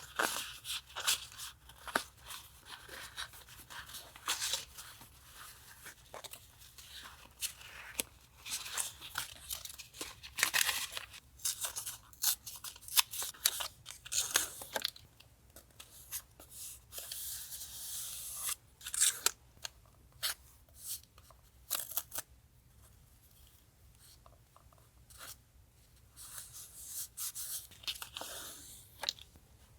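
Paper collage work on a journal: sheets and stickers being handled, peeled and cut with scissors, heard as irregular short rustles, snips and small clicks, with quieter stretches partway through.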